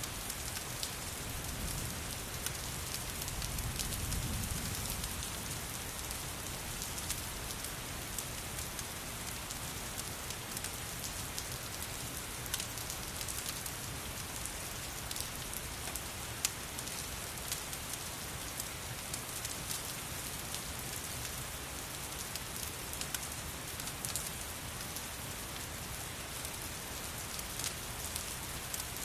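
Steady rain mixed with a crackling fireplace: an even hiss with sharp crackles scattered through it. A low rumble swells briefly about four seconds in.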